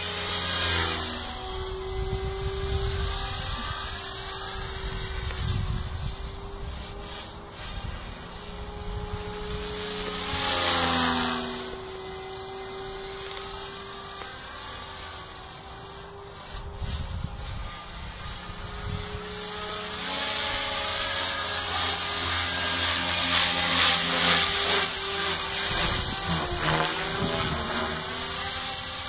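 Radio-controlled helicopter flying aerobatics: a high motor whine and a rotor buzz that bend in pitch as it manoeuvres, growing louder near the end. Wind gusts rumble on the microphone at times.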